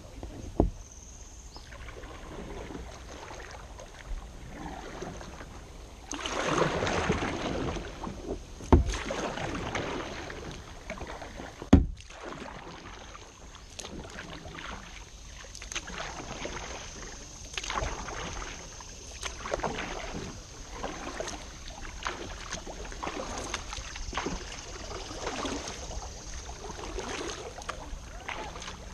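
Kayak paddle strokes: water swishing and splashing off the blades in swells every second or two, with three sharp knocks.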